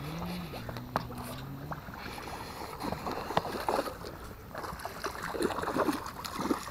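A hooked bass thrashing and splashing at the water's edge as it is fought in on a rod and reel, in a run of irregular splashes. In the first two seconds a low drone rises and falls, then holds steady.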